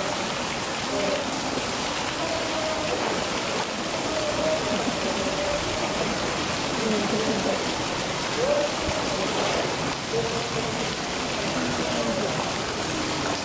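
A steady rushing water noise, with faint voices in the background.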